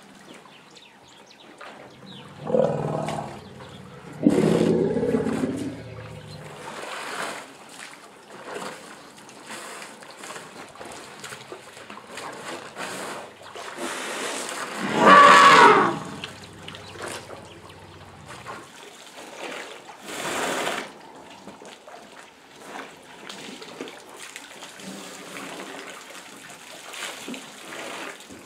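African savanna elephants calling at a waterhole: a loud low call about three seconds in, another just after, and the loudest, higher call around the middle, over trickling and splashing water as the herd drinks.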